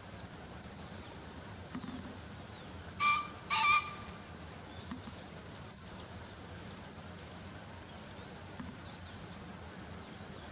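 Male green pheasant crowing: two loud, harsh notes about half a second apart, a few seconds in. Faint high chirps from small birds run underneath.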